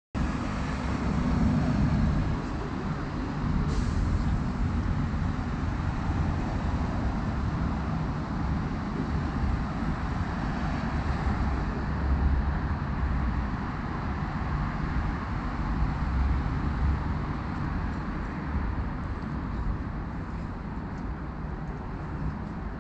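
Steady urban road traffic: vehicles running past with a continuous low rumble.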